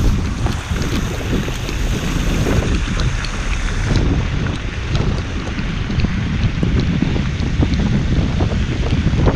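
Wind buffeting an outside-mounted camera's microphone as the vehicle moves, a steady heavy rumble with scattered small ticks throughout.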